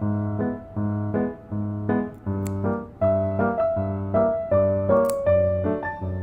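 Background music led by a piano or electric piano: a bouncy melody of short notes over a steady, repeating bass pattern.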